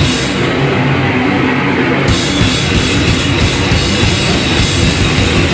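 Live heavy metal band playing loud distorted guitars, bass and drums; about two seconds in the drums open up with crashing cymbals.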